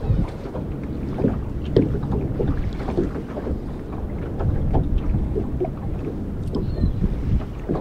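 Water lapping and slapping irregularly against the hull of a small hand-rowed boat, over a steady rumble of wind on the microphone.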